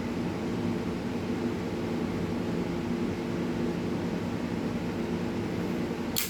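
Steady hum and hiss of room machinery, then near the end a single sharp metallic click, the clack of a Zippo lighter's lid snapping shut.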